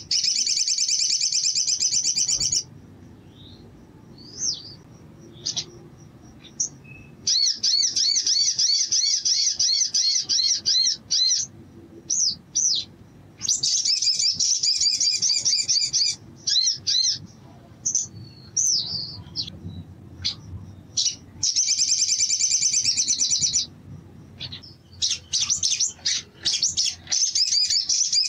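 Male olive-backed sunbird (sogon) singing: five loud bursts of rapid, high trilled song, each a few seconds long, with single sharp chirps between them.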